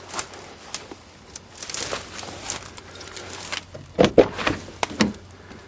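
A long-unused van's door being worked open: faint clicks and rustles, then several loud clunks of the latch and door about four seconds in.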